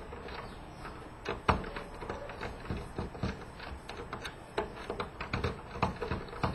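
Screws being undone from a PS3 Blu-ray drive with a Phillips screwdriver: a scatter of irregular sharp clicks and taps of the tool and parts against the drive's casing, with one louder knock about a second and a half in.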